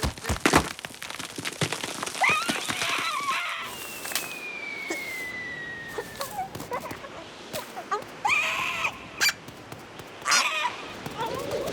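Cartoon sound effects: three bursts of bird-like squawking, many sharp clicks and knocks, and a thin whistle that slowly falls in pitch for about two seconds in the middle.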